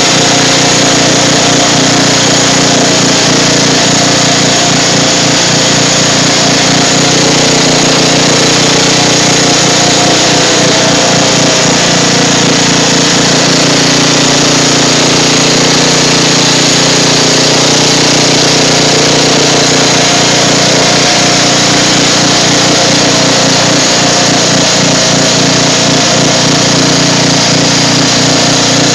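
Craftsman riding lawn mower's engine running steadily, loud and close, as the mower drives through water.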